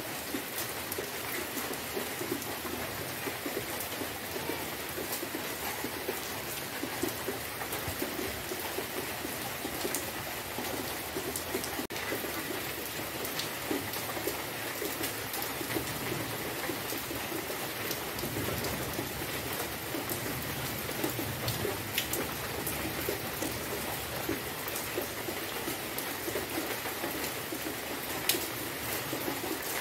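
Steady rain falling, with many separate drop hits heard through the hiss.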